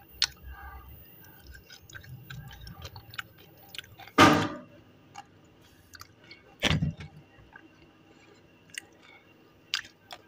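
Close-miked chewing of something hard and crunchy, slate pencil going by the video, with small mouth clicks and two much louder crunches, about four and about seven seconds in.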